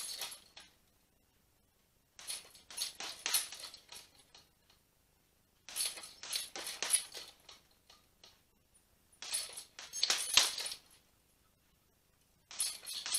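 Boxing gloves smacking a hanging heavy bag in quick combinations of jab, jab, cross, hook. Each flurry of hits comes roughly every three and a half seconds, with short pauses between.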